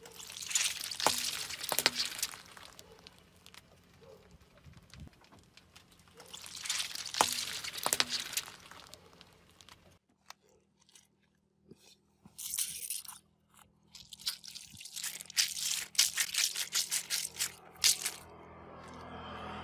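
Mesh stress balls filled with water beads being crushed under a car tyre, giving two spells of wet crackling and squishing, about a second in and about seven seconds in. Later, a run of short squishes and crackles as a burst mesh ball is squeezed by hand and its water beads squeeze out through the netting.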